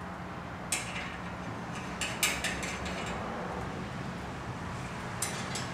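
Steel nuts and washers clinking against each other in a hand as they are sorted, in a few short bursts of metallic clicks over a steady low hum.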